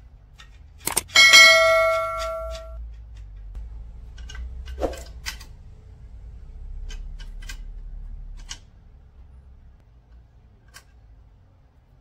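A small metal furniture part rings out with a bright clang about a second in, after a short click, and rings on for about a second and a half. Scattered small clicks and knocks follow as the hardware is handled and fitted inside the hollow wooden table leg.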